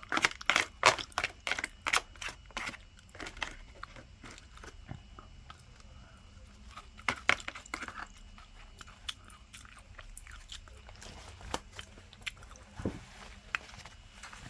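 Close-up crunchy chewing of breaded, deep-fried pork cutlet (tonkatsu), dense at first, with another flurry of crunches about seven seconds in and sparser, softer chewing after.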